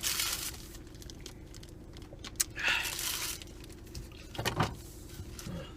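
Two short bursts of rustling, one at the start and one about halfway through, with a few small clicks and knocks over a steady low hum inside a car.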